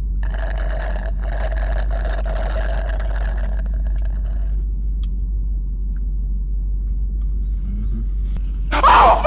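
Steady low rumble of a car in motion, heard from inside the cabin, with faint steady tones during the first few seconds. Near the end comes a short, loud burst.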